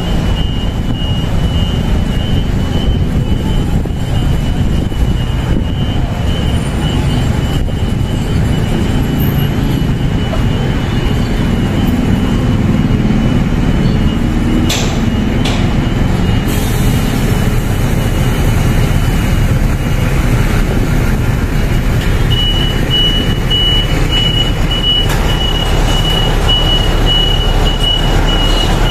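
Garbage trucks' engines running with a continuous heavy rumble, and a thin, high steady tone at the start and again through the last several seconds.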